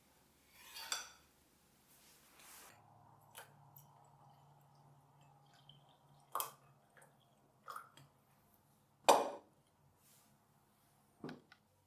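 Scattered short knocks and clinks of small objects being handled, about six in all, the loudest about nine seconds in, over a faint steady hum that sets in under three seconds in.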